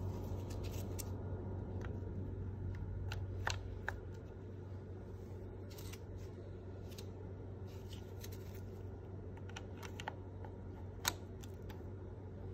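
Light plastic clicks and taps from plastic combs being fitted into an agarose gel casting tray, with two sharper clicks, one about three and a half seconds in and one near the end, over a steady low hum.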